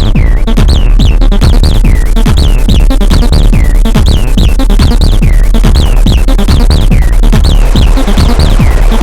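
Acid techno played live on hardware: a Behringer TD-3-MO acid bassline over a steady electronic drum beat, with a repeating pattern of high synth blips that each fall in pitch.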